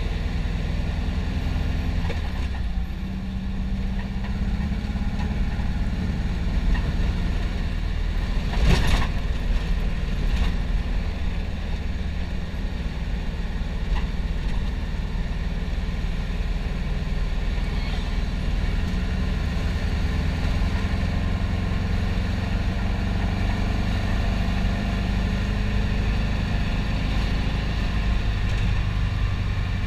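1962 Volkswagen Beetle's air-cooled flat-four engine running steadily under way, heard from inside the cabin along with road noise. A single sharp knock about nine seconds in.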